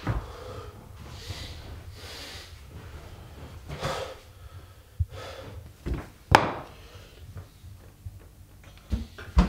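A man breathing heavily through the nose, broken by a few short knocks and one sharp click a little past the middle.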